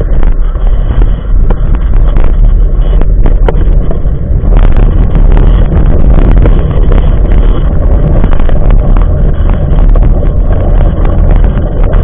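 Loud, steady rumble of a jogging stroller rolling over rough pavement, heard through a camera mounted on the stroller, with wind buffeting the microphone and scattered clicks and rattles from the frame.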